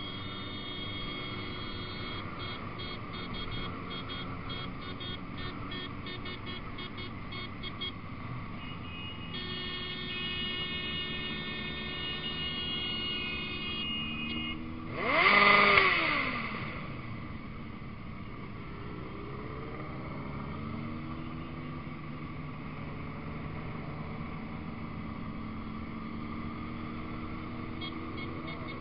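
Motorcycles running in a group ride, engines and road noise steady, with a loud surge about halfway through where an engine's pitch climbs and then falls away, like a bike revving past. High pulsing beep-like tones come and go over the first half and again at the end.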